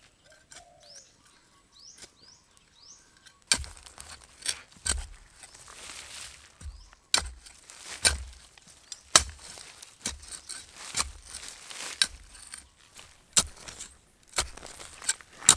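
Wood being chopped with a blade: a run of sharp strikes with a dull thud, about one a second, starting a few seconds in. Before the chopping, a small bird chirps a few short rising notes.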